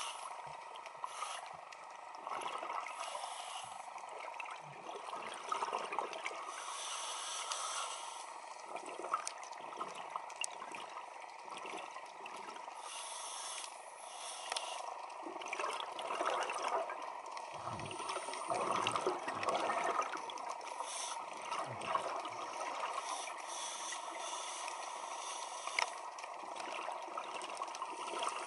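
Underwater ambience heard through a camera housing: a steady crackling hiss full of fine clicks, with bursts of low bubbling from scuba exhalations a little past the middle.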